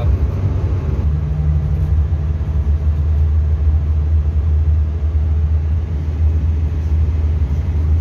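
Hillman Super Minx's four-cylinder engine cruising at highway speed, heard from inside the cabin as a steady low drone mixed with road noise.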